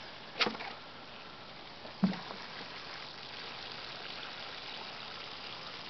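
Water pouring from a plastic watering can's rose onto seed-starting soil mix in a plastic tub, wetting it for soil blocks: a steady soft splashing hiss. A short knock about half a second in and a dull thump about two seconds in.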